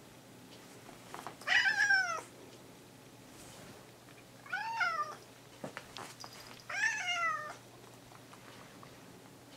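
A domestic cat meows three times, each call about half a second long and sliding down in pitch at the end.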